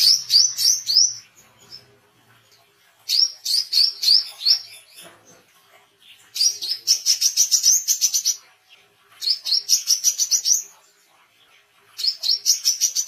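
Male brown-throated sunbird (wiceh) singing in full voice: five bursts of rapid, high chirping notes, each one to two seconds long, separated by short pauses.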